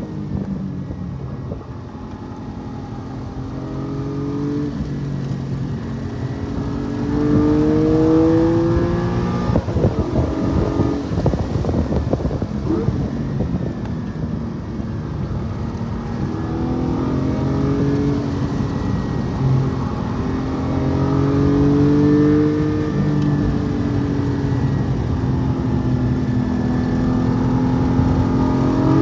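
Porsche 718 Cayman GT4's flat-six engine heard from inside the car on track: the revs climb under acceleration twice, pitch rising each time, with a rougher stretch between as the driver comes off the throttle. Tyre and road noise run underneath.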